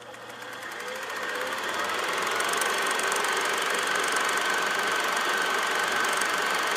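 A steady mechanical whirr with a fine rapid rattle and a thin high steady tone, fading in over the first couple of seconds and then holding level.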